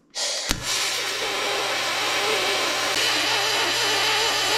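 Electric arc welding on the steel rudder and gudgeon: the arc starts suddenly just after the start, with a sharp click about half a second in, then runs as a steady loud hiss over a low welder hum.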